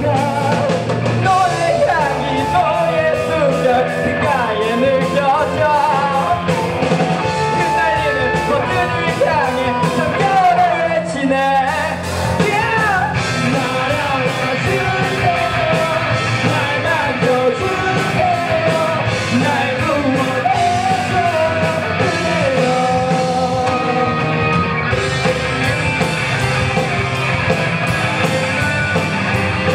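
Rock band playing live: electric guitars, bass and drums with a singer.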